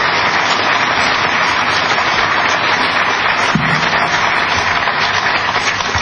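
A crowd applauding steadily: dense, even clapping.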